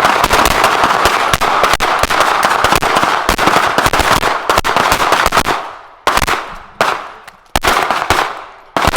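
Pistol fire at a firing line: a dense, overlapping string of rapid shots for about five seconds, then separate shots about two every three seconds, each followed by a short echoing tail.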